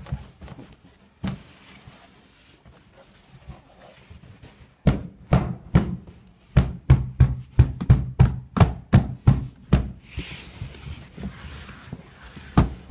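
A run of sharp knocks: a few about five seconds in, then a steady series of about three a second for some three seconds, and a couple more near the end, as parts of a portable baptism pool are knocked together during assembly.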